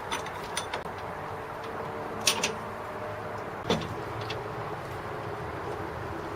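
Scattered light metal clicks and clinks of a brass combination valve being threaded onto the water heater's fitting by hand, over a steady low hum. The sharpest click comes a little under four seconds in.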